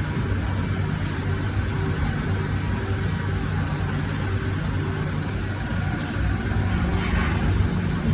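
Haas ST-20 CNC lathe running with a steady mechanical hum and a low drone that holds level throughout.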